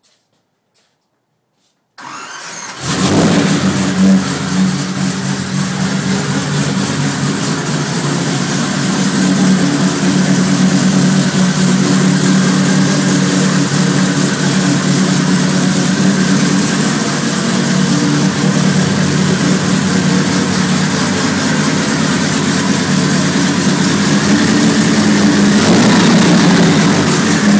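Miller racing engine starting: it fires about two seconds in and catches within a second, then runs steadily and loud, picking up a little near the end.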